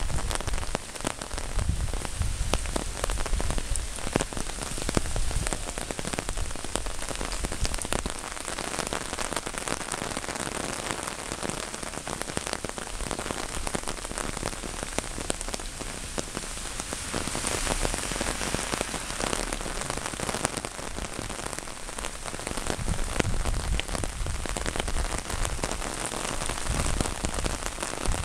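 Heavy rain falling on an umbrella held over the camera and on the wet street: a steady, dense hiss of drops. A low rumble runs under it for the first several seconds.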